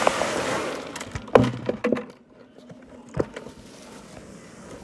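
About a second of loud rustling, scraping noise, then several sharp knocks and cracks, spaced irregularly, over a quieter background.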